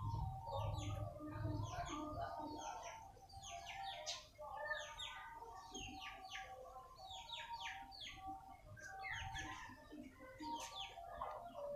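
Small birds chirping: clusters of two to four quick high notes, repeated every second or so, over fainter lower calls.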